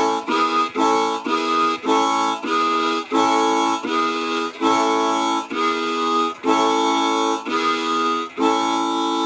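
Blues harmonica played cupped against a handheld microphone, amplified. It plays repeated chords in a steady rhythm that slows from about three chords a second to about one a second.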